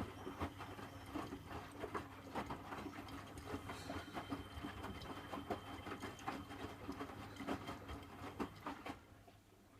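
Miele WDA110 front-loading washing machine's drum turning a wet load, giving soft, irregular knocks and patter over a steady motor hum. It stops about nine seconds in as the drum pauses between turns.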